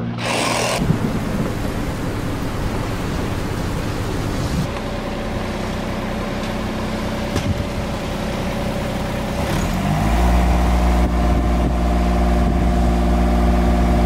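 An aerial lift's engine runs steadily. About ten seconds in it steps up in speed and gets louder and deeper. A short rush of noise comes right at the start.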